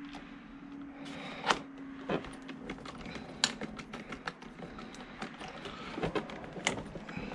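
Irregular small clicks and knocks of a screwdriver and hard plastic parts being worked while a screw is driven to fix the tail fin of an EPO foam RC jet, with three sharper clicks among them. A faint steady low hum runs underneath.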